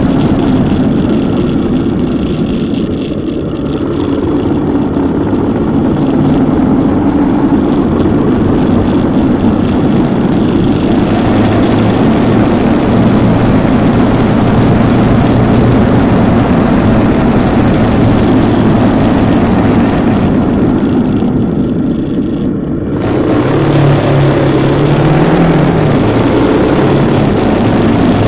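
Motorcycle engine running while riding through traffic, mixed with wind and road noise, as picked up by a camera mounted on the bike. The level dips briefly twice, and about two-thirds of the way in the engine note climbs and falls as the bike picks up speed.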